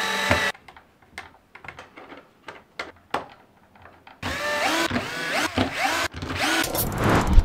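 Cordless screwdriver driving screws into a router's plastic motor housing. A short run at the start, then light clicks of handling, then from about four seconds in a longer stretch of short runs with the motor whine rising and falling, loudest near the end.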